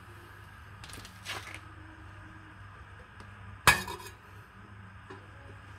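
A single sharp clink with a short ring about two-thirds of the way through, over a steady low hum, with two softer brushing noises about a second in.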